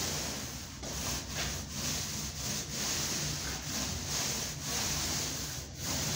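Paint roller on an extension pole rolling wet paint up and down drywall: a steady rubbing swish, with short breaks each time the stroke turns, roughly every half second to a second.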